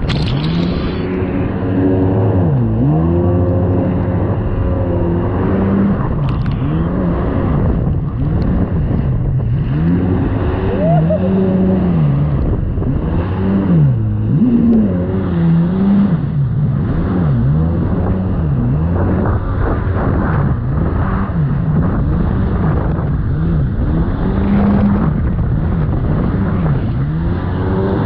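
Jet ski engine running at speed, its pitch repeatedly dipping and climbing back every second or two, over the rush of water and spray against the hull.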